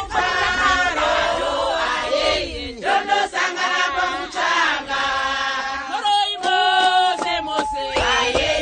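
A group of women singing a chant-like song together, with hand claps.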